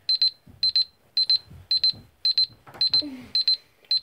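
Electronic alarm beeping: groups of three or four quick, high-pitched beeps repeating about twice a second, the morning wake-up alarm left going off. Soft bedding rustles under it, with a short low voice sound about three seconds in.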